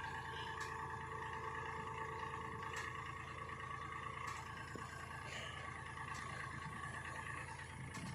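Diesel engine of heavy machinery running steadily, a whine with a low hum under it, with a few faint clicks.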